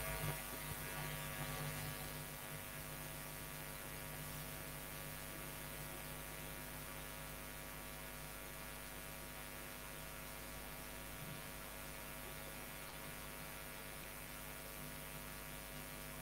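Steady electrical mains hum with a faint hiss, low in level, picked up on the recording's audio line.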